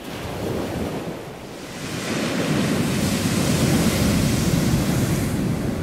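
Ocean surf breaking on a beach, with wind buffeting the microphone; the rush of the waves grows louder about two seconds in.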